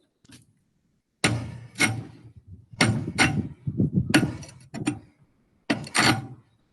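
A string of sharp metallic clanks and knocks, some in quick pairs, from a hand wrench being fitted and worked on the lug nuts of a truck wheel to loosen them.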